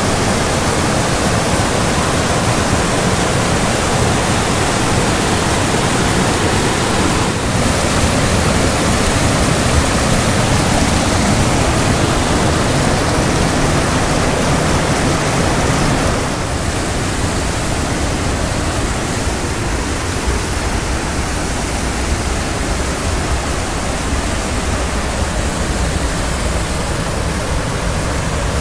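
A small waterfall and the rapids below it rushing steadily, a full, even sound of falling and churning water that gets a little quieter about halfway through.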